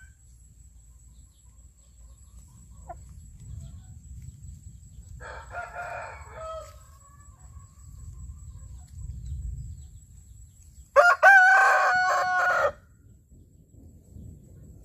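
Rooster crowing: a fainter crow about five seconds in, then a loud full crow lasting nearly two seconds about eleven seconds in.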